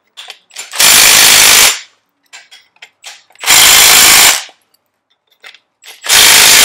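Milwaukee M12 Fuel hydraulic impact driver run in three bursts of about a second each, driving the screws of a strut spring compressor down to compress a front coil spring. The driver switches between the compressor's two arms, with small metal clicks between bursts.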